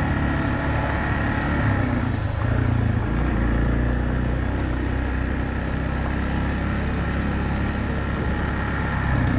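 Single-cylinder four-stroke engine of a 2006 Yamaha TW225E trail motorcycle running steadily, its note dropping lower about three seconds in.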